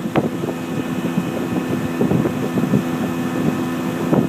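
Boat motor running steadily with a constant hum, with wind buffeting the microphone.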